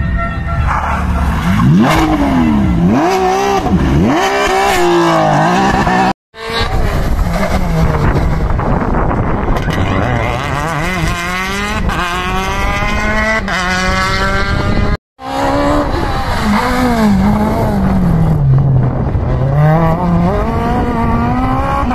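Rally car engines at full throttle, three cars one after another: a Porsche 911, then a Citroën DS3, then a Peugeot 306. Each revs up and drops back through gear changes and braking for a corner. The sound breaks off abruptly about 6 s in and again about 15 s in.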